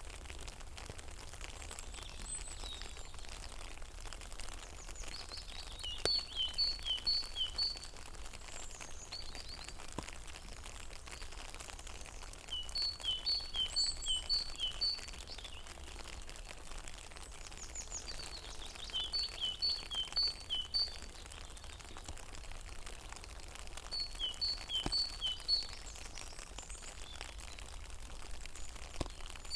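A songbird singing short phrases of quickly repeated high-low note pairs, four phrases about six seconds apart, over a steady hiss of rain.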